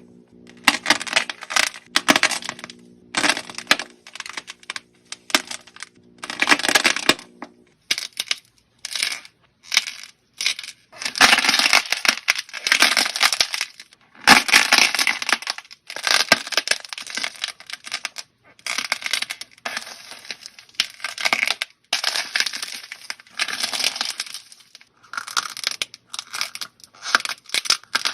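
Slime being worked by hand, crackling and popping in repeated bursts with short pauses between squeezes. A low steady hum sits underneath for the first several seconds, then stops.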